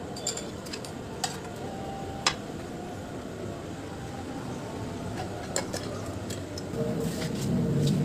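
Metal parts of a washing machine gearbox clinking and tapping as they are handled, with a few sharp clinks scattered through. A low rumble grows near the end.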